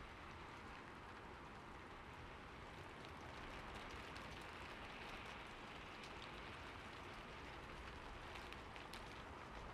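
Faint, steady rain-like hiss with scattered light ticks.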